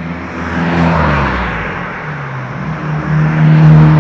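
Two road vehicles passing close by one after the other, the first swelling about a second in with its engine pitch dropping as it goes by, the second louder near the end.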